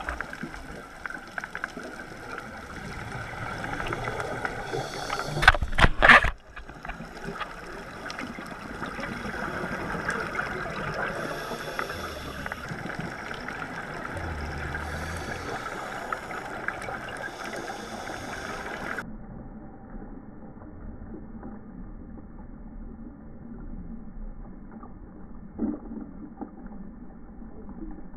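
Muffled underwater noise through a camera housing: scuba divers' regulator breathing and exhaled bubbles. There is a loud rushing burst about six seconds in, and after about two-thirds of the way through the sound turns duller.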